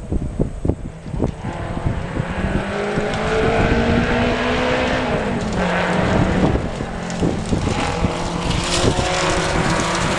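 Ford Capri race car's engine running hard on a hillclimb run, getting louder as it approaches. Its pitch climbs, then steps down about five seconds in. Wind thumps on the microphone in the first second or so.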